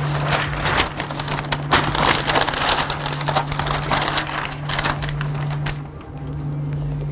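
Wide brown paper band rustling and crinkling as it is pulled and smoothed over the machine's rollers by hand, with many sharp crackles; the rustling dies away about six seconds in.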